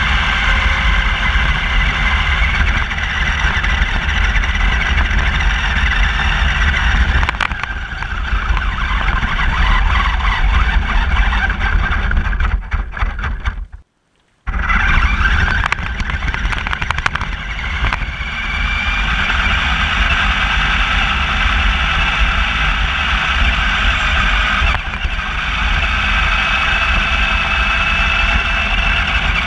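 Electric RC car driving on pavement, heard from a camera mounted on the car itself: a whine from the motor and gears that rises and falls with speed, over a loud rumble of tyre and chassis vibration. The sound cuts out for about half a second halfway through.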